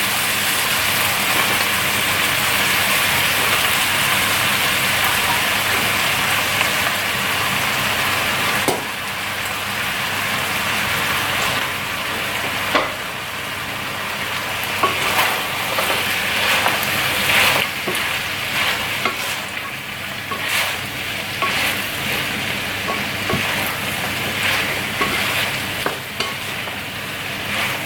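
Curry ingredients sizzling in hot oil in a pan, steady at first. From about a third of the way in they are stirred, with scattered scrapes and taps of the utensil against the pan.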